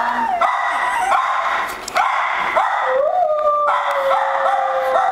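Chihuahua crying in distress: a run of short, high-pitched whining yips, then, about three seconds in, one long drawn-out whine. It is a hospitalized dog crying to go home with its owner.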